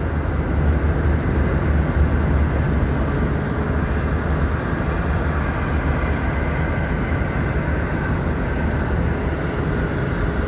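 Steady road and engine noise inside a moving car's cabin: a deep, even rumble under a constant wash of noise, with no sudden events.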